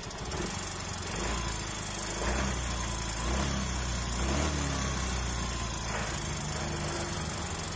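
Yamaha Mio i 125 scooter's single-cylinder four-stroke engine idling unevenly with a knocking sound, its level rising and dipping. The knock comes from a camshaft scored by lack of lubrication, and the cam worn at the decompression is what makes the idle unstable.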